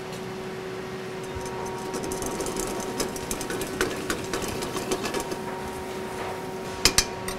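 Metal sauté pan of pasta and lobster in butter sauce being shaken and tossed over a gas burner: rapid rattling, ticking and scraping of the pan and its contents, over a steady hum. Two sharp metal knocks near the end.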